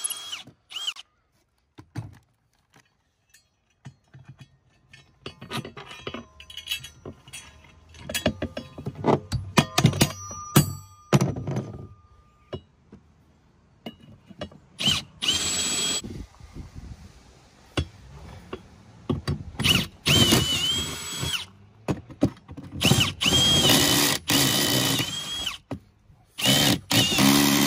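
AEG cordless drill boring mounting holes through a metal bracket into a boat's fibreglass hull. It runs in four short bursts in the second half, each motor whine rising quickly in pitch as it spins up. Before that comes a run of knocks and clatter.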